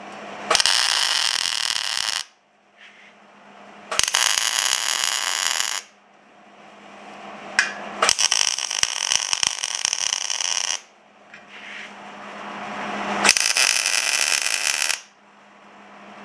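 MIG welder laying tack welds on steel channel: four separate bursts of welding arc, each lasting about two seconds, with short pauses between.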